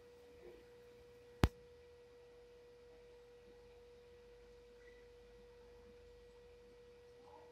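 A faint, steady pure tone held at one mid pitch, with a single sharp click about a second and a half in.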